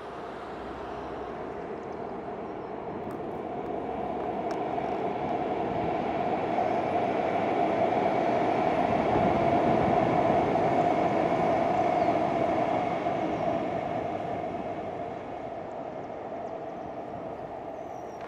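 REM Alstom Metropolis electric light-metro train passing by, its running noise swelling to a peak about halfway through and fading as it moves off.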